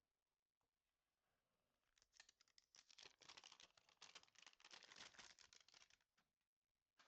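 Packaging of a Pokémon card Poké Ball tin crinkling and tearing as it is opened by hand: a dense, rapid crackle that starts about two seconds in and stops about four seconds later.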